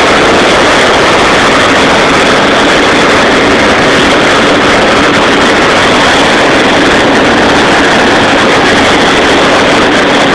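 Hot-air balloon propane burner firing one long continuous burn, a loud steady rush of flame heating the air in the envelope, heard from directly beneath it in the basket. It cuts off suddenly shortly after the end of this stretch.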